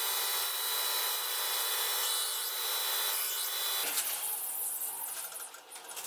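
Belt grinder running steadily, grinding a small steel plate, with its motor's hum under the abrasive hiss. It cuts off about four seconds in, and a steel scriber then scratches faintly across a steel plate along a steel ruler, with a couple of light clicks near the end.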